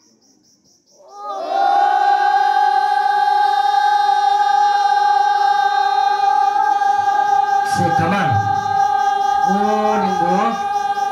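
A group of men holding one long, high note together in a traditional Naga field-work chant. It starts about a second in and stays steady, and lower voices call and sing over it near the end.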